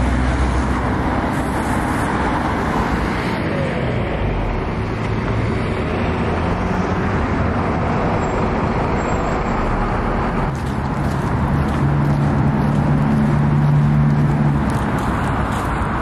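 Road traffic: a steady wash of passing-car noise, with one vehicle's engine hum swelling about twelve seconds in and fading again near fifteen seconds.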